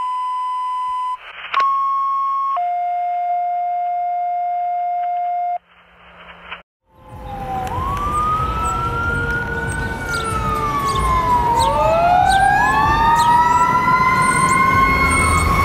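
A run of steady electronic tones that changes pitch twice. Then, after a short pause, a fire engine's siren winds up and down in long rising and falling sweeps, several overlapping, growing louder as the engine approaches over low traffic rumble.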